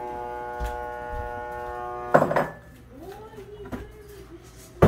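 A steady electric motor hum cuts off with a loud clatter about two seconds in. Quieter kitchen handling sounds follow, with a sharp knock near the end.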